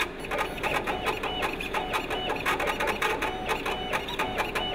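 Laser cutter's head driven in quick stop-start moves, its stepper motors whining in short strokes several times a second, the pitch jumping from one move to the next.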